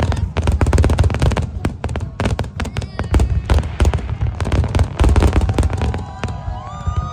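Aerial fireworks display: rapid crackling bursts over deep booms of shells going off one after another. Several whistling tones glide down in pitch near the end.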